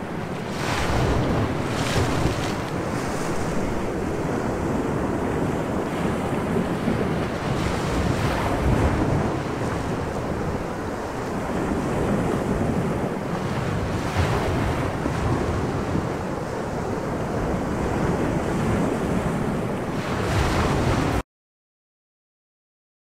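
Added sound effect of wind and breaking sea waves: a steady rush of wind and surf with a wave surging up every few seconds. It cuts off suddenly to dead silence near the end.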